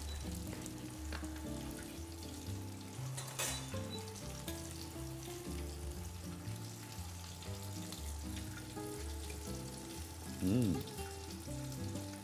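Linguine sizzling in a hot frying pan of olive oil and butter as tongs lift and twirl it out of the pan, with a single sharp click a few seconds in, over soft background music.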